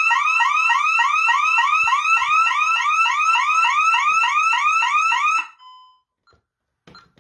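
Honeywell Vista 15P alarm system's siren sounding a fast repeating rising whoop, about five a second, set off by a tripped interior motion sensor on the armed system. It cuts off suddenly about five and a half seconds in, followed by a short beep and a few clicks.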